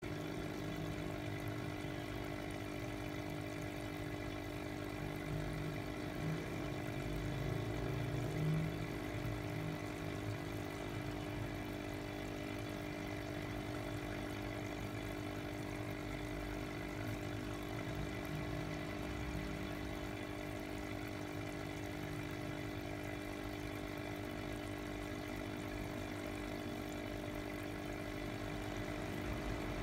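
Small aquarium pump humming steadily, with air bubbling up through the water of a goldfish bowl.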